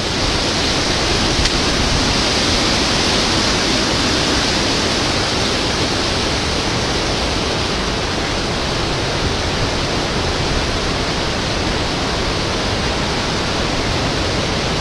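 Hurricane Sandy's rain and wind in woodland: a steady, even hiss of heavy rain over a low rumble of wind.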